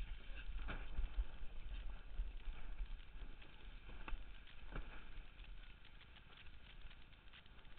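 Wind buffeting the microphone of a camera mounted on a windsurf rig, a steady low rumble, with irregular knocks and slaps from the board and rig bouncing over chop, three of them sharper, near the start and around four and five seconds in.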